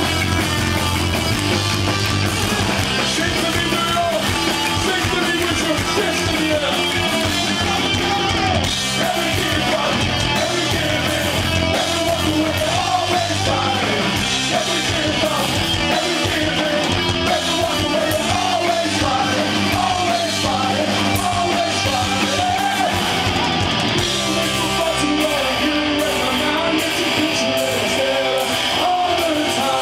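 Live punk rock band playing loud: distorted electric guitars, bass and drums under a lead singer shouting the vocals.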